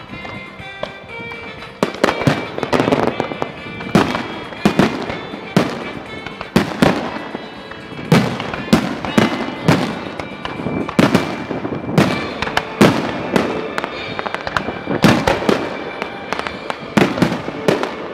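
Fireworks display: music plays for about the first two seconds, then aerial shells burst in quick succession, roughly one to two sharp bangs a second with crackling between them.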